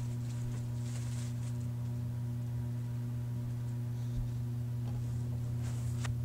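A steady low hum with faint rustling about a second in and a brief rustle near the end.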